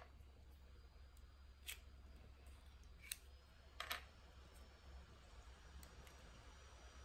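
Faint handling noise: a few small sharp clicks, spread irregularly through the first half, as a USB cable and a Flipper Zero in its orange silicone case are handled, over a faint low hum.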